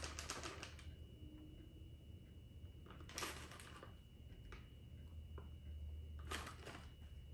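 Soft crinkling of a plastic bag of shredded cheese as the cheese is shaken out and sprinkled by hand, in three short bursts about three seconds apart.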